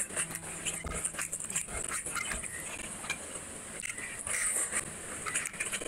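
Close-miked wet chewing and lip-smacking of rice and fish curry eaten by hand, many quick small clicks and smacks, with a low steady note of background music in the first second and a half.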